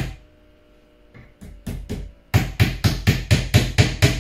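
Hammer driving small nails into a flat-pack bedside table: one blow, a few light taps about a second in, then a fast run of strong, even blows, about four a second.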